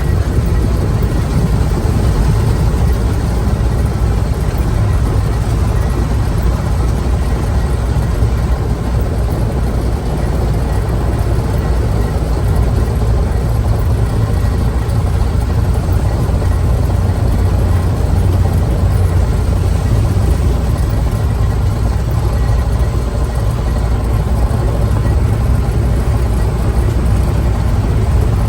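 Logging truck engine running steadily under way, a deep, even drone that does not change pace.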